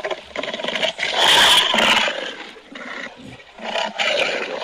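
Custom dragon roar sound effect: a rasping growl, then a loud roar about a second in, and a second, shorter roar near the end.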